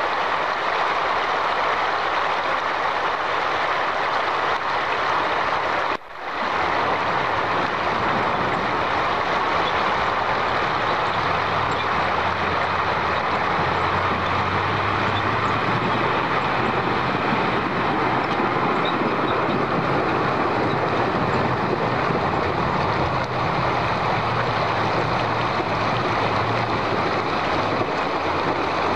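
Heavy six-wheel-drive truck's engine working steadily as it fords a river, over a loud, even rush of flowing and splashing water. The sound drops out briefly about six seconds in.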